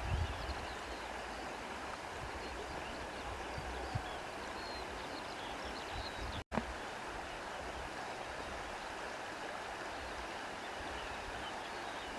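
Steady rushing of running water from a stream, with low rumbling beneath it. The sound cuts out completely for a split second about six and a half seconds in.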